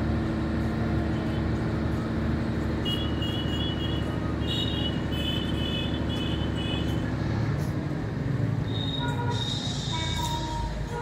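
Railway locomotive running with a steady low hum that weakens about seven seconds in, with short high-pitched chirps over it in the middle.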